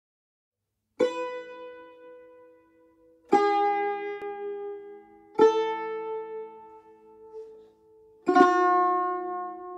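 Persian tar plucked in G quarter-flat (sol koron): four separate plucked notes, each with a sharp attack that rings on and fades, starting about a second in and spaced two to three seconds apart.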